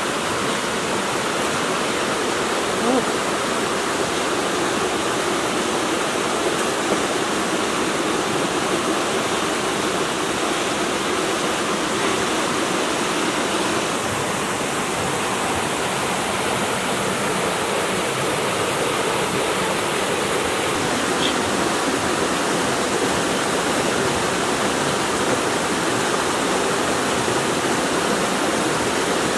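Mountain stream rushing over rocks and down a small cascade: a steady wash of water.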